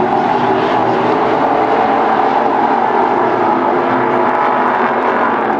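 A pack of NASCAR Truck Series race trucks' V8 engines running hard at racing speed on a dirt oval, a loud, steady, layered engine drone.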